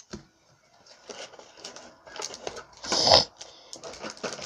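Handling of Pokémon cards and a foil booster pack wrapper: scattered small clicks and crinkles, with a louder crinkling burst about three seconds in.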